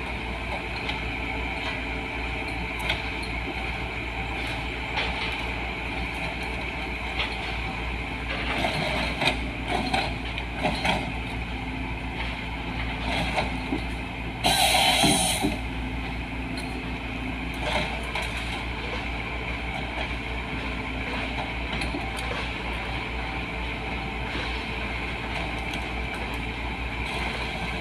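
LiuGong 915E excavator with a harvester head running steadily, with scattered clattering about 8 to 11 seconds in and one loud hiss lasting about a second near the middle.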